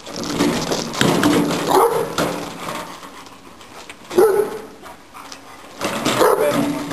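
Young Cane Corso barking in short bursts, several times, as it tugs at a wheelbarrow. The noise of the wheelbarrow being dragged over gravel runs underneath.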